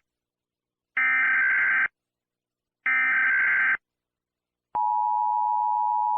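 Emergency Alert System SAME header: two bursts of digital data tones, each about a second long with a short gap between. After a slightly longer gap, the steady two-tone EAS attention signal begins and holds.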